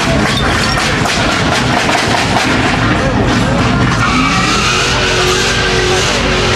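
A car doing a burnout: the engine revving at high rpm and the tyres squealing and spinning on the pavement, with crowd voices over it. About four seconds in, the engine note rises and then holds steady.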